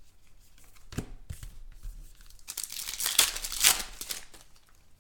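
A football trading-card pack wrapper being torn open and crinkled, with a few rustling tears and short clicks as the cards come out. The rustling is loudest about three to four seconds in.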